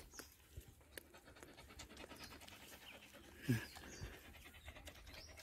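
A dog panting rapidly with her mouth open, faint quick breaths throughout. About three and a half seconds in comes one short, louder low sound that falls in pitch.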